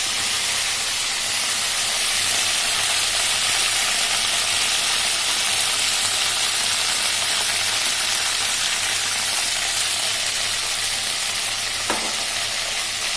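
Chopped garlic and whole green chillies sizzling steadily in hot oil in an iron kadai, with a brief click near the end.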